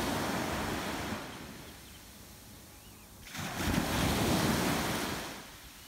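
Small waves washing onto the shore. One wash dies away over the first couple of seconds, and another surges in about three and a half seconds in, then draws back.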